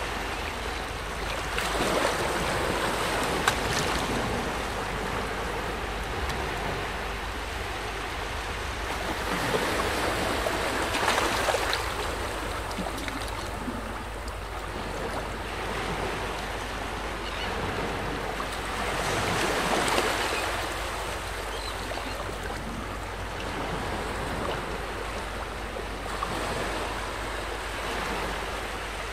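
Waves washing in at the water's edge: a steady hiss of water that swells and fades again about every nine seconds.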